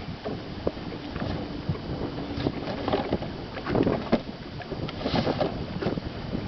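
Irregular knocks, bumps and rustling of handling in a fishing boat, with wind on the microphone.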